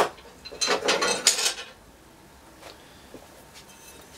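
Metal elevator fixture parts (button plates and faceplate frames) clinking and rattling as they are handled. A sharp click comes at the start, then a burst of clattering lasting about a second.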